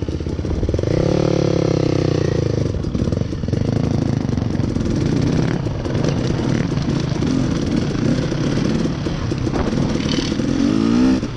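Dirt bike engine running under way on a rough trail, its revs rising and falling with the throttle, and a sharp climb in revs near the end.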